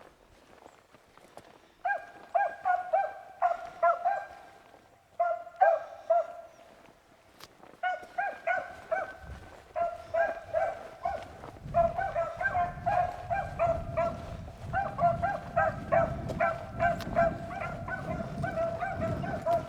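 Beagles baying while running a rabbit: quick strings of high, ringing yelps in bursts, beginning about two seconds in and becoming nearly continuous from about halfway, with a low rumble underneath in the second half.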